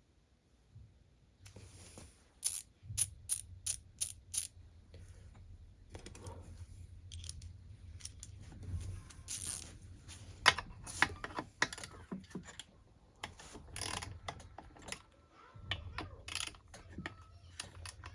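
Hand ratchet or torque wrench clicking in short runs while the ignition module bolts are tightened to about 3 newton metres, with sharp metallic ticks and clinks of tools.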